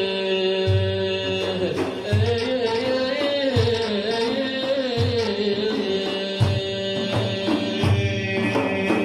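Instrumental interlude of Iraqi madih (religious praise song) music: a sustained, wavering melody over a steady drum beat, with about one low drum stroke a second.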